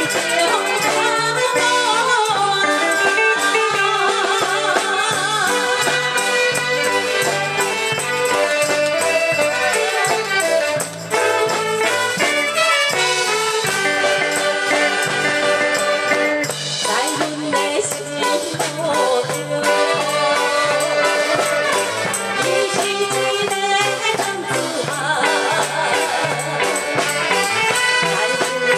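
Live band playing a Taiwanese Hokkien pop song, with a steady bass beat, a shaker, and a melody line with wavering vibrato.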